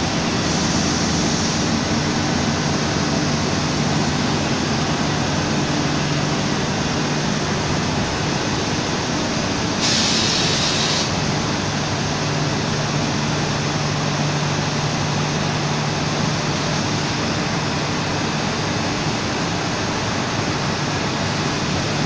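Cotton spinning mill machinery running: a continuous even whir and hiss over a low steady hum, with a brief sharper hiss about ten seconds in.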